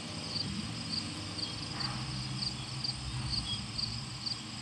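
A cricket chirping in a steady rhythm, about two chirps a second, over a steady low hum.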